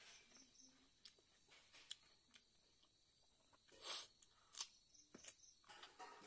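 Quiet eating sounds: scattered wet mouth clicks and chewing smacks from eating by hand, with a brief louder burst of noise about four seconds in followed by a few sharp clicks.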